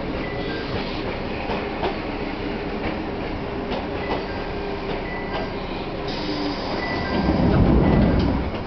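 Chichibu Railway 1000 series electric train standing still, its onboard equipment humming steadily, with a louder low rumble swelling about seven seconds in and easing off near the end.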